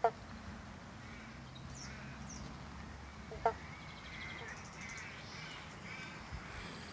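Several birds calling and chirping, with two short sharp calls as the loudest sounds: one right at the start and one about three and a half seconds in.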